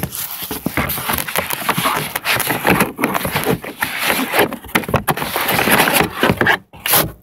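Close, loud handling noise: irregular rustling, scraping and knocking as a keyboard is pulled out of its cardboard box and packaging and the camera is set down.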